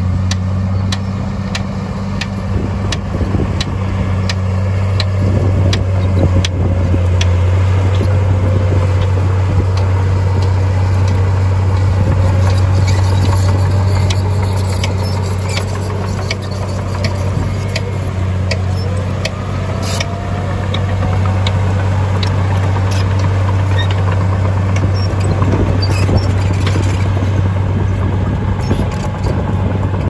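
Heavy earthmoving machinery at work: a large diesel engine running steadily with a deep hum, over many short sharp clicks and clanks.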